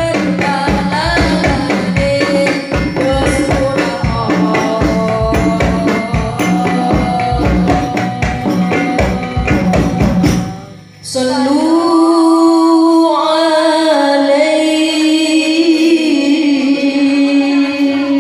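Sholawat sung by a woman through a microphone, backed by hadrah frame-drum percussion. About eleven seconds in the drums stop and she holds a long, wavering, ornamented line alone.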